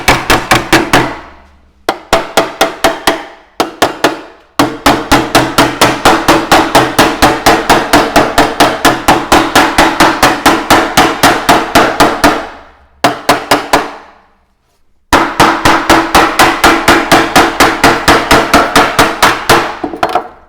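Hammer blows on a 1.3 mm steel sheet clamped over a metal angle bar, folding its edge over to about 90 degrees. The strikes come rapid and even, about three to four a second, each ringing with a metallic tone, in several runs broken by short pauses.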